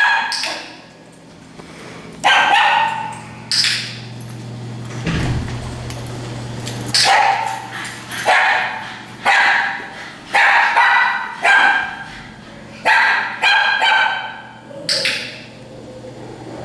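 Dogs barking in short, sharp single barks, over a dozen of them coming at irregular intervals, with a steady low hum underneath.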